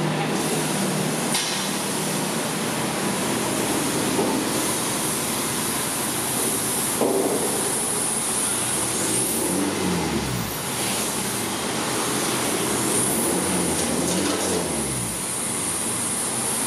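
BMW 520d's four-cylinder turbodiesel running stationary through an exhaust fitted with a high-flow 200-cell catalytic downpipe, heard at the tailpipes. It runs steadily, with two brief rises in revs that fall back, about midway and again near the end.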